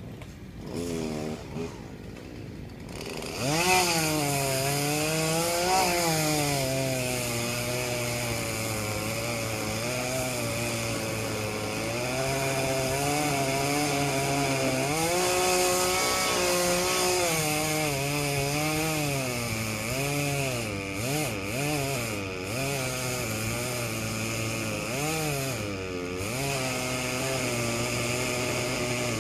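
Two-stroke chainsaw giving two short bursts about a second in, then running from about three seconds in, its engine pitch rising and falling as it revs and cuts.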